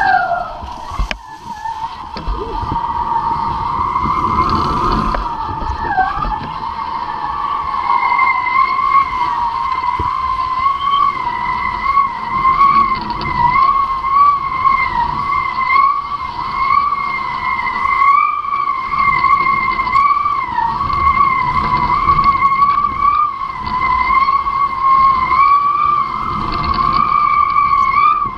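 Kitefoil hydrofoil singing: a steady, high whistling whine with an overtone, its pitch wavering slightly, over low rumbling wind noise on the microphone.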